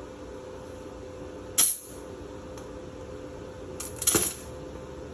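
Two short, sharp hits, such as tools or small metal parts being handled on the welding bench, about two and a half seconds apart; the second is a quick cluster of several. Behind them is a steady low hum.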